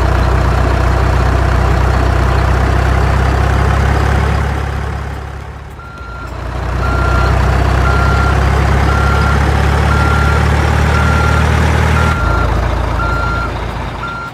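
Heavy truck engine running steadily, easing off and coming back about six seconds in, when a reversing alarm starts beeping about once a second.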